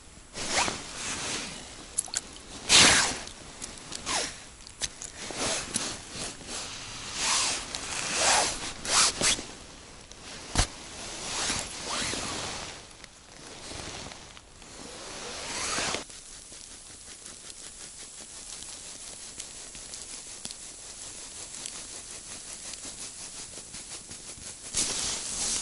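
Close handling noise at an ice-fishing hole: irregular rustling, scraping and crunching of snow, gloves and clothing while a small winter rod and reel are worked by hand, with a sharp click about ten seconds in. After about sixteen seconds it drops to a faint steady hiss, and the rustling returns near the end.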